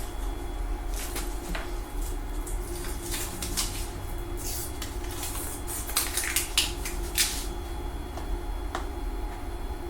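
Workshop handling noises: scattered knocks and light clatter, with a few short swishing sounds about three seconds in and again around six to seven seconds. A steady low hum runs underneath.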